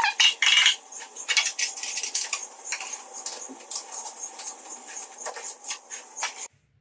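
Thin plastic bottle crinkling and a string of light clicks and taps as plastic parts on top of a car battery are handled, busiest in the first second and cutting off abruptly near the end.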